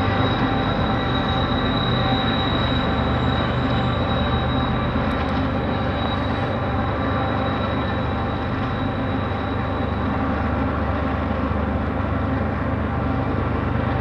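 CN eastbound freight train rolling steadily past, its wagons making a continuous rumble with a thin high-pitched steady squeal over it.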